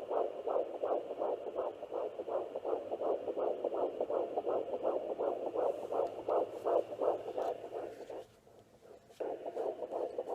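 Handheld fetal Doppler sounding a baby's heartbeat in early pregnancy: a fast, even, pulsing whoosh over a faint static hiss. It drops out for about a second near the end, then picks up again.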